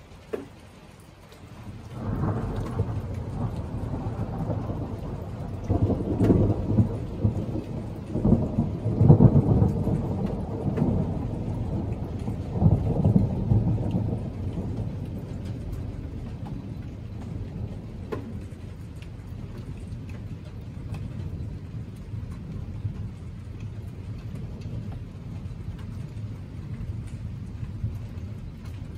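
Rolling thunder from a thunderstorm: a low rumble builds about two seconds in and swells in several peaks before fading after about fourteen seconds, with steady rain continuing underneath.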